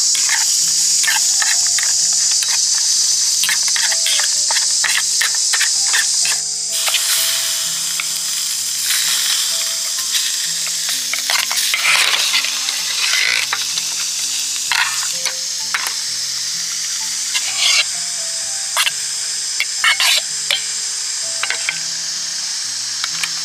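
Food sizzling as it fries in a pan, with a utensil clicking and scraping against the pan as it is stirred. The clicks come quickly in the first few seconds and more sparsely later. Soft background music plays underneath.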